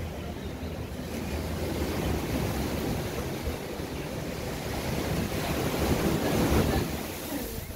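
Small ocean waves washing onto the beach, swelling loudest as a wave breaks at the shore about six seconds in, then falling back. Wind buffets the microphone with a low rumble.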